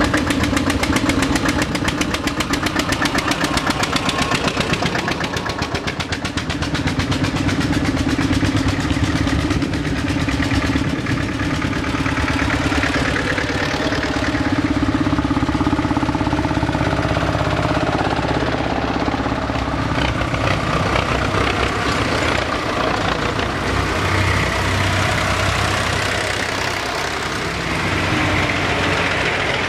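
Vintage tractors driving uphill past one after another, their engines running throughout. A fast, even engine beat stands out in the first few seconds, then gives way to a steadier mix of engines as the next machines come by.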